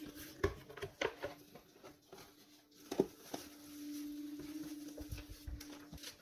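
Cardboard box flaps and bubble wrap being handled, then paper instruction sheets lifted out: irregular crinkling and rustling with a few sharp crackles, over a faint steady hum.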